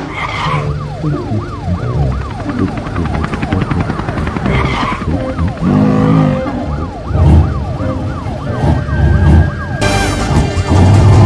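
Cartoon fire truck siren wailing quickly up and down, about two cycles a second, with busy low sound effects underneath and a louder burst near the end.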